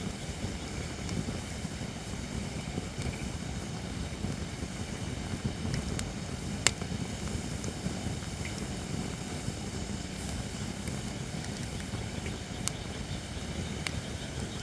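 Holly-wood campfire burning with a steady low rush and a few sharp crackles and pops scattered through, one pop standing out about halfway through.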